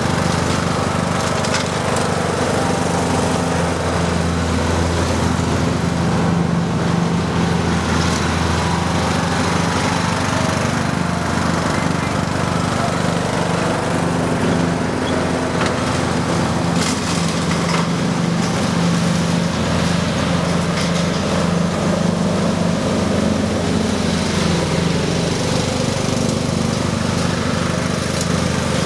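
John Deere riding lawn tractor running steadily while mowing, its engine and cutting deck giving a continuous drone, with a few brief ticks now and then.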